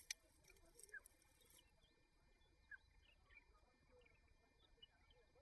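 Near silence: faint outdoor quiet with a few scattered faint chirps and ticks, most of them in the first second and a half.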